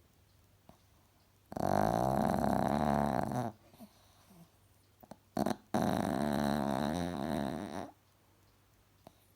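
Chihuahua snoring: two long snores of about two seconds each, with a short sound between them.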